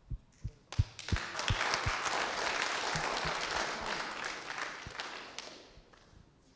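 Small audience applauding, starting about a second in and fading out after about four seconds, with a few soft low thumps at the start.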